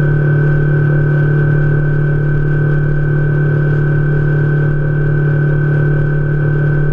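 Boat's outboard motor running at a steady cruising speed: a constant, unchanging drone.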